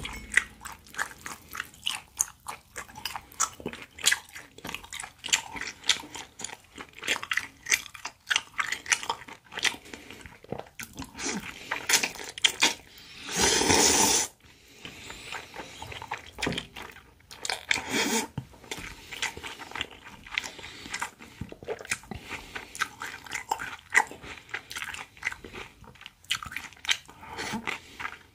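Close-miked chewing of a spicy whelk, cucumber and thin noodle salad: many short, wet, crunchy bites. About thirteen seconds in, a loud slurp of noodles lasts about a second, with a shorter one around eighteen seconds.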